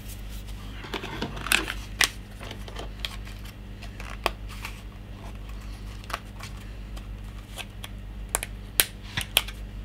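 Fingers handling a small SSD and picking tape off it: scattered small clicks, ticks and scratchy rustles, the sharpest about two seconds in and several near the end, over a steady low hum.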